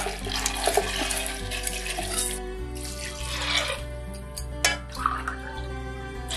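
Soaked whole black gram (urad) and kidney beans poured with their soaking water from a bowl into an aluminium pressure cooker, splashing, then more water poured in from a steel tumbler. Background music plays underneath.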